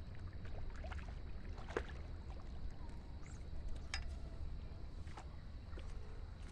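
A hooked fish splashing at the water's surface while being played on a pole, a few short sharp splashes over a steady low rumble.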